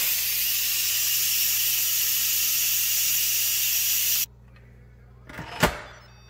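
Instant Pot electric pressure cooker venting through its steam release valve: a loud, steady hiss of steam for about four seconds that cuts off suddenly. This is the quick release of pressure after 15 minutes of pressure cooking. A short clunk follows near the end.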